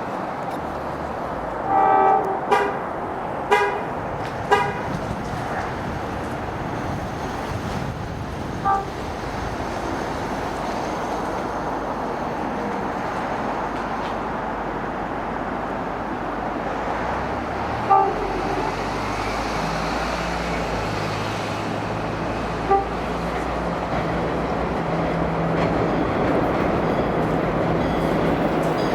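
Amtrak AEM7 electric locomotive's horn sounding a string of warning blasts for track work crews: a longer blast about two seconds in, then three short toots, then single short toots spread out later. Under it a steady rumble grows louder as the train approaches.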